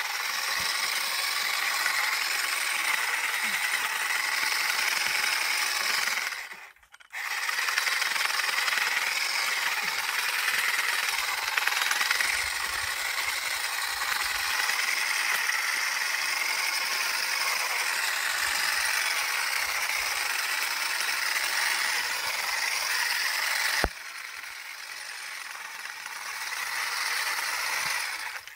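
GeoTech Olive Picker 400 EVO battery-powered olive harvester running, its red combs beating back and forth in a rapid, steady mechanical clatter. The sound cuts out for under a second about a quarter of the way in, and it runs quieter after a click near the end.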